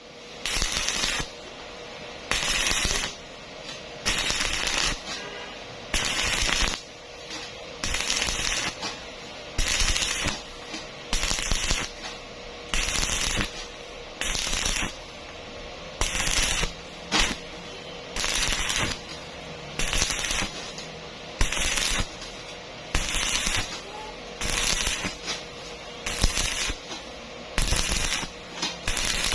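Stick-welding arc crackling in short bursts, struck and broken again about every one and a half to two seconds: the stop-start way of laying a weld on thin steel without burning through.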